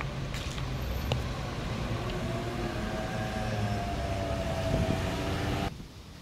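City traffic and engine rumble as a fire-service emergency vehicle passes. A held, slightly wavering high tone sounds over it from about two and a half seconds in, and the sound cuts off suddenly near the end.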